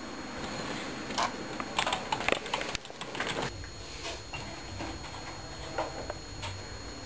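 Typing on a computer keyboard: irregular key clicks for the first three seconds or so. After that the clicking stops, leaving a faint low hum and a few soft knocks.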